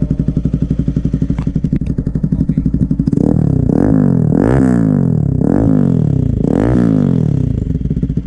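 Bajaj Pulsar NS200's single-cylinder engine through an aftermarket SC muffler, idling with a steady pulsing beat, then revved four times in quick succession from about three seconds in before dropping back to idle near the end.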